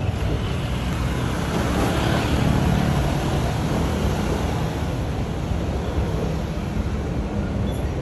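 Passenger train rumbling along the elevated railway viaduct, swelling about two seconds in and then slowly fading.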